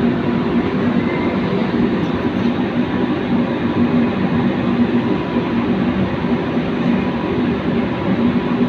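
Heavy machinery running steadily: a loud, even low drone with a faint thin whine above it.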